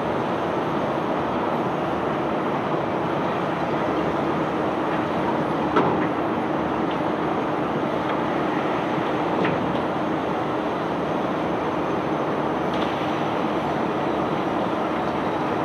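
Self-unloading barge discharging cobblestones: its unloading machinery runs with a steady rushing noise over a constant low hum. A few faint knocks come through, the clearest about six seconds in.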